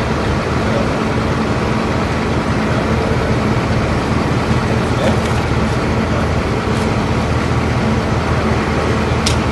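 Car driving, with steady engine and road noise and a low hum.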